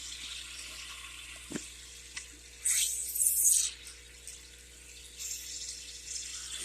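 Small aquarium's air bubbler and filter fizzing and trickling steadily, with a louder burst of splashy hiss about three seconds in that lasts about a second.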